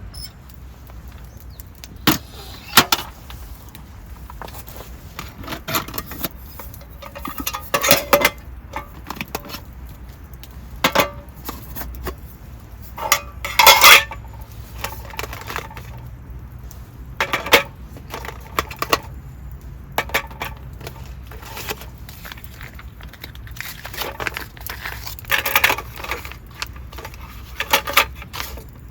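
Irregular clinks, clatters and knocks of camp gear being handled, like metal cookware and utensils, over a low steady rumble.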